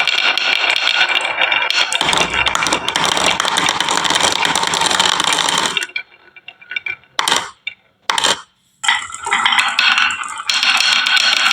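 Many marbles rolling and clattering down a marble run track, a dense rattle of clicks. About halfway through it stops almost completely, with a few lone clicks, then the clatter picks up again near the end.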